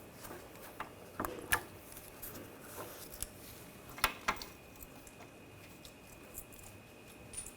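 A few scattered light clicks and taps of bolts and metal parts being handled while bolts are started by hand into a wheel hub bearing assembly, with a faint steady high tone in the background from about halfway in.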